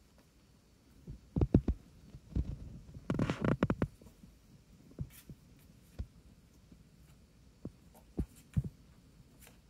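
Soft thuds and bumps of kittens tussling in rough play: a flurry of knocks in the first few seconds, then scattered single thumps, over a faint steady hum.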